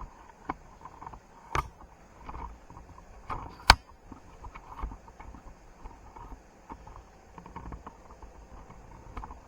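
Camera and tripod being handled and adjusted: scattered sharp clicks and knocks, the loudest a little under 4 seconds in, over faint rustling and creaking.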